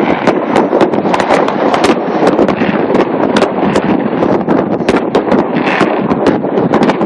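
A barrage of fireworks going off: sharp bangs and cracks, several a second, over a dense, continuous crackle of overlapping explosions.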